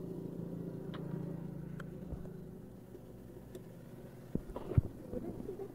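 Fuel-pump nozzle being put into a motorcycle's open fuel filler: a steady low hum that fades a few seconds in, then a few sharp metal clicks and one louder knock near the end as the nozzle meets the filler neck.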